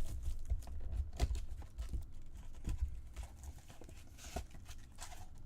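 Baseball card packs being handled and opened: a string of uneven crinkles, rustles and light clicks of wrappers and cards being handled, over a low rumble.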